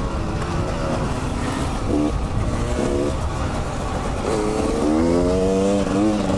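Dirt bike engine under throttle, its pitch climbing in several rises through the second half as it accelerates. Heavy wind rumble on the helmet-mounted microphone runs underneath.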